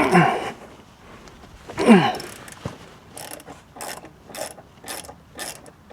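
Hand ratchet wrench with a small socket working a motorcycle brake caliper bolt: short clicking strokes, about two a second, from about three seconds in. Two louder sounds falling in pitch come before it, at the start and about two seconds in.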